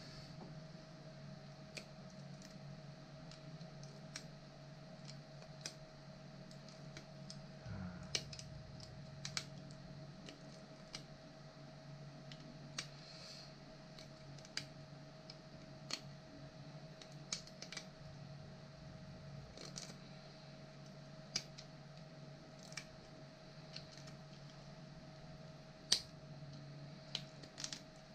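Irregular light clicks and taps of hand work on 3D-printed plastic parts, every second or two, over a steady electrical hum.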